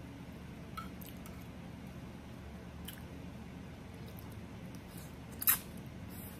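Close-up eating sounds: a metal fork twirling black bean noodles on a plate, with a few soft clicks, then one sharp, loud click about five and a half seconds in as the forkful goes into the mouth.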